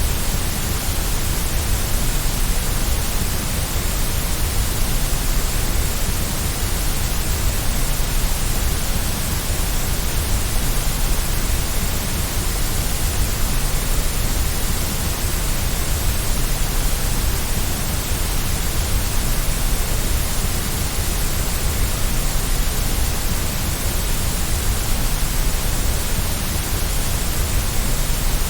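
Steady, unchanging white noise track: an even hiss with no events, strongest in the deep low end and the highs.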